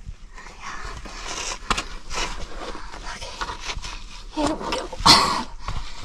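Hard breathing and effort sounds of a person squeezing and climbing through a narrow sandstone slot, with small scuffs against the rock. A loud breathy burst comes about five seconds in.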